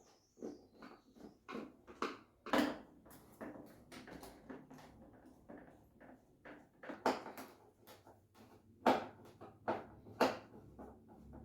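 Irregular clicks and light knocks of screws being taken out of a Samsung TV's plastic rear cover.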